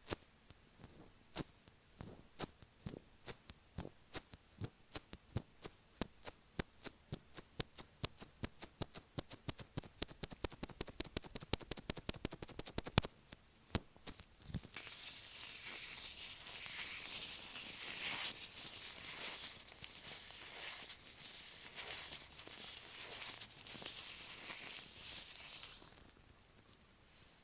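Close-up taps on an earphone microphone, made with latex-gloved fingers, speeding up from about two a second to a quick patter over the first half. A loud tap about halfway through ends them. Then continuous scratchy rubbing and rustling on the mic for about eleven seconds, which dies away near the end.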